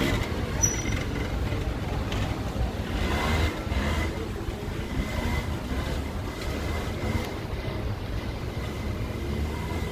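Outdoor street-market ambience: a steady low rumble with faint voices of passers-by about three seconds in.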